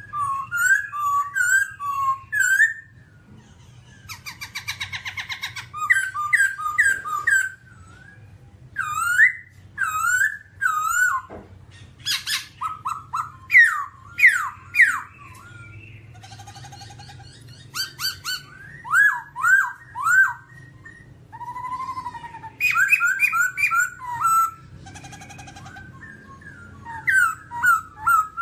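Black-throated laughingthrush singing: a varied run of loud whistled phrases, quick rising and falling notes repeated in groups of three to five, broken by short harsh raspy passages and brief pauses.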